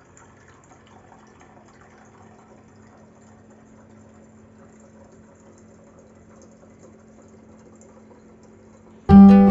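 Bottom-loading electric water dispenser drawing water, a faint steady hum with a light watery hiss. Near the end, loud acoustic guitar music cuts in suddenly.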